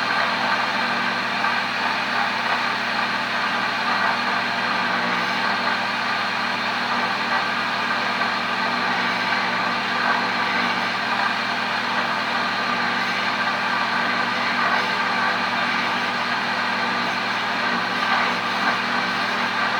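Pampered Chef Deluxe Cooking Blender's motor running steadily, blending ice into a liquid eggnog mixture.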